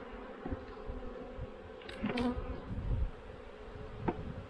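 Honeybees buzzing steadily around an open hive box, a robbing frenzy of bees trying to get at the exposed frames. A few short sharp knocks sound over the buzz, about two seconds in and again near the end.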